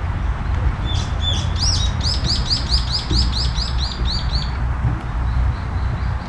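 A songbird singing a fast run of repeated high, arched notes, about four a second, starting about a second in; a fainter run of similar notes follows near the end. A steady low rumble runs underneath.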